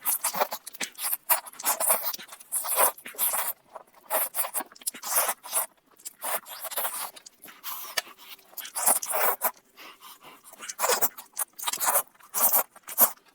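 Lamb chops being eaten with big mouthfuls: loud, irregular wet chewing, smacking and gnawing on the meat.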